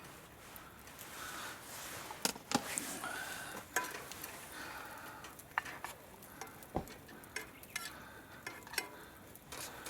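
Cooking utensils stirring and scraping in a pan, with scattered light clicks and clinks.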